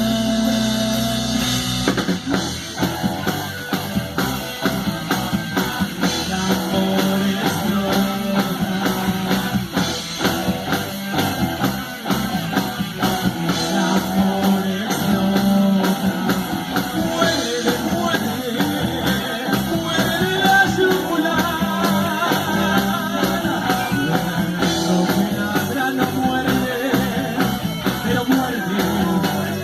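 Rock music playing: guitar over a steady drum-kit beat, a stretch of the song without sung words.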